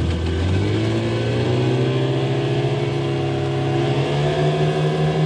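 Speedboat outboard engine running under power, its pitch climbing in two steps as the revs rise.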